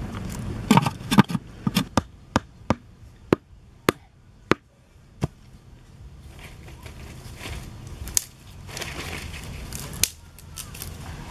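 Sharp knocks and snaps of wooden and bamboo sticks being worked by hand, about a dozen irregular strikes over the first five seconds. After that comes softer rustling of sticks and dry leaves, with a few more clicks.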